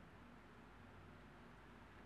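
Near silence: a faint, steady hiss with a low hum underneath, and no thunder or other sudden sound.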